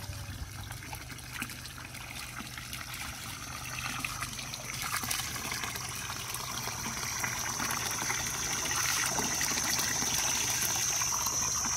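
Running water splashing and trickling as raw chicken feet are rinsed. A steady high whine comes in about five seconds in and grows louder.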